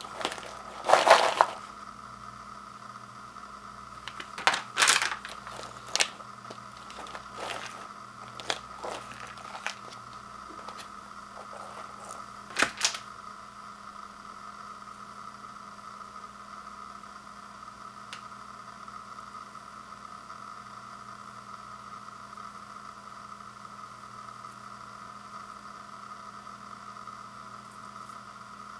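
Snack-bag crinkling and rolled tortilla chips clattering in a plastic bowl as they are handled. There are a few short bursts over the first dozen seconds, the loudest about a second in. After that only a faint steady hum remains.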